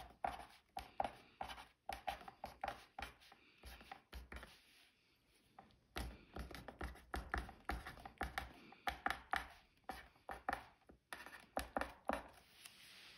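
Pen writing on paper close to the microphone: a run of quick, short strokes, with a pause of about a second around a third of the way in.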